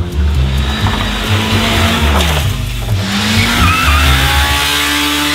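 Small Japanese kei mini truck engine running and revving, its pitch rising about three seconds in, with a brief tire squeal just after.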